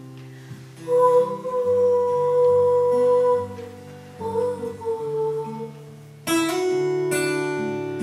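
Acoustic guitar played with a woman's voice holding long notes without words; a loud strummed chord comes in about six seconds in.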